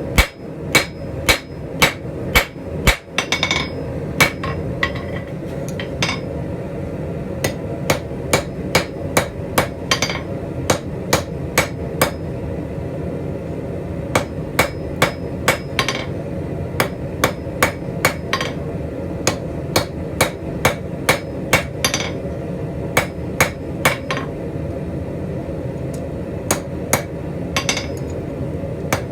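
Hand hammer striking hot steel on an anvil, drawing out the tips of scrolling tong blanks to a point. The blows come in runs of about two a second with short pauses, over a steady background noise.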